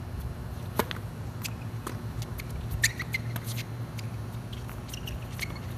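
Tennis ball struck with a racket on a serve about a second in, then further sharp racket hits and ball bounces of a rally, the loudest about halfway through. A steady rumble of wind on the microphone runs underneath.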